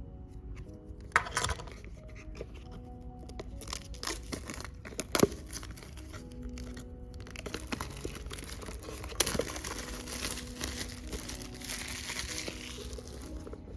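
Plastic packaging of a tempered-glass screen protector being handled and opened: crinkling and tearing, with a few sharp clicks and a longer rustling stretch near the end, over soft background music.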